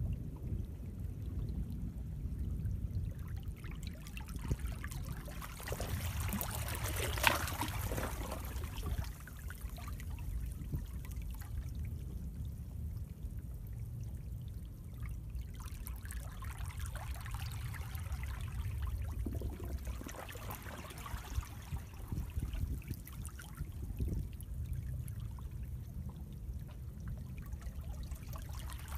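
Seawater rushing and trickling through a narrow channel between rocks on a rocky shore. It swells louder for a few seconds about a quarter of the way in.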